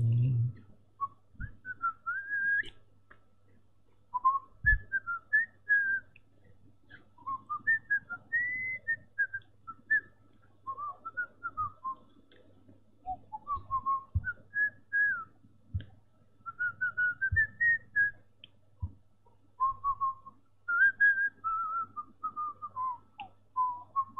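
A person whistling a meandering tune in short phrases of gliding notes, with pauses between the phrases.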